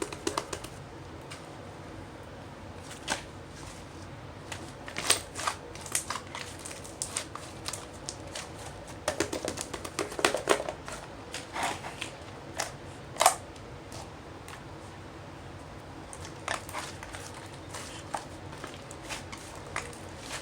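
White slime being handled, making irregular sharp clicks, thickest about halfway through.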